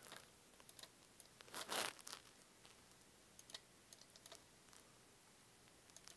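Faint computer keyboard keystrokes and mouse clicks, scattered and irregular, with one brief louder scratchy noise a little under two seconds in.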